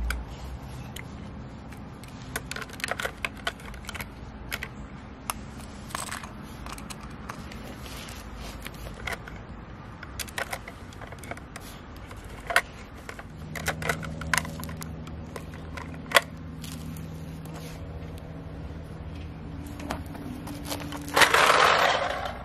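Scattered small clicks and taps of a toy garbage truck's parts and bins being handled and moved. A steady low hum joins about halfway through, and a louder rushing scrape lasting about a second comes near the end.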